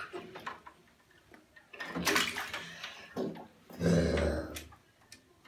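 Bathtub water splashing and sloshing as hands push toys through it, in two bursts about two and four seconds in, quieter between.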